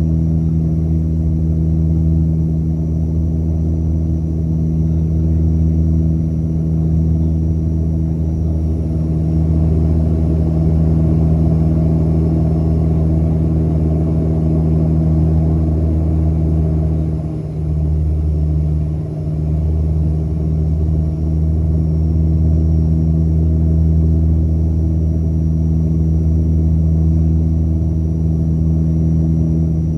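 Turboprop engines and propellers of a Dash 8 Q300 running steadily: a low drone of several even, steady tones over a hum, with a faint high whine. The level dips briefly twice a little past halfway.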